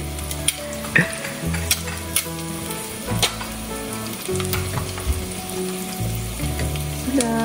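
Thai basil chicken (pad kra pao) sizzling as it is stir-fried in a pan, with a few sharp clicks of the utensil against the pan. Background music with held notes plays underneath.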